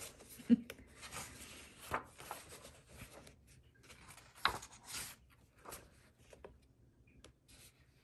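Paper pages of a colouring book being turned by hand: soft rustling and sliding of the sheets, with a few sharp flicks as pages fall over.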